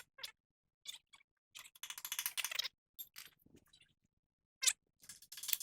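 Hand tools clicking and clanking on a tie rod end nut, with a quick run of rapid clicks about two seconds in and sharp knocks near the end, as the nut is worked loose to shear its cotter pin rather than pull it.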